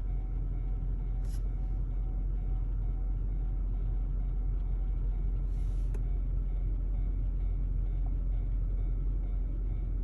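Steady low rumble of an idling road vehicle, with two short hisses, about a second in and again around six seconds in.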